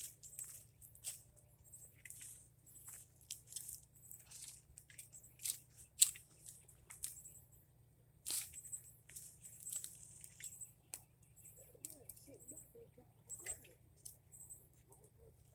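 Hands digging through mulch and soil in a potato bed: irregular scratchy rustling and crunching, with a sharp snap about six seconds in.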